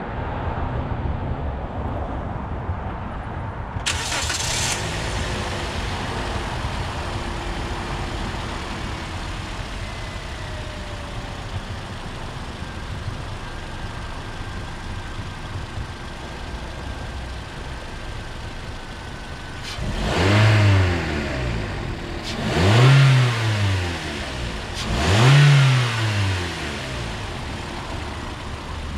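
2012 Toyota Corolla S's 1.8-litre four-cylinder engine idling steadily with the hood open. Near the end it is revved three times, each rev rising and falling back to idle about two and a half seconds apart.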